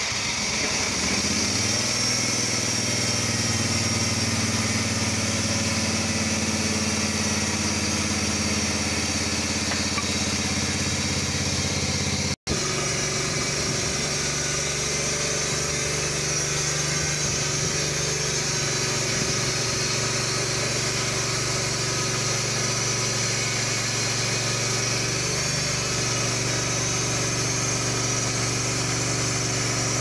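Portable bandsaw sawmill's engine running steadily. The sound cuts out for an instant about twelve seconds in, then goes on at a slightly different pitch.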